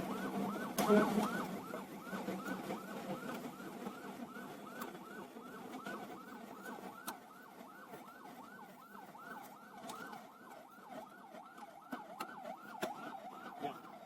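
An emergency-vehicle siren in a fast yelp, its pitch sweeping up and down about three to four times a second, growing fainter through the middle. A few sharp clicks sound over it.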